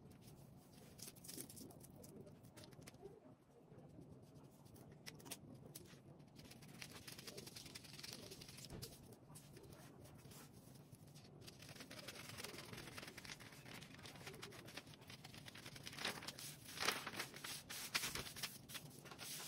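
Faint rustling and crinkling of brown pattern paper being handled, with scattered small crackles, loudest near the end as the paper pieces are moved about.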